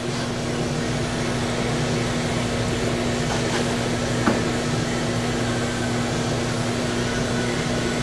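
Industrial microwave tempering system running: a steady mechanical hum with one constant low tone over an even whir, as the conveyor loads product and the microwave transmitters power up. A single brief click about halfway through.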